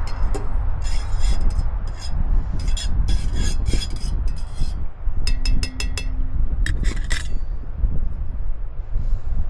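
Wind buffeting the microphone, with a run of scraping, rubbing and clinking sounds through the first seven seconds, some of them short and ringing.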